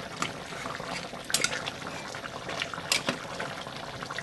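Metal spoon clinking and scraping against an enamel cooking pot while broth is ladled over braised chicken and potatoes, over the steady hiss of the sauce simmering on high heat. Two sharper clinks stand out, about a second and a half apart.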